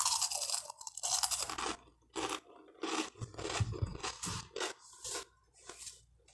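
Crunching and chewing of buttered toast: a dense run of crunches for the first second and a half after the bite, then chewing crunches in irregular bursts.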